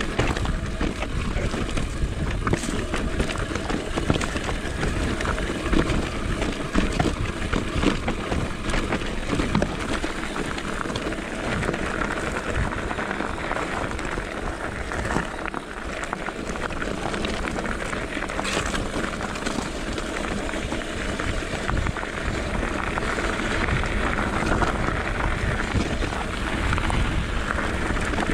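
Mountain bike rolling down a rocky dirt and gravel trail: tyres crunching over loose stones, with frequent clicks and knocks of the bike rattling over the bumps.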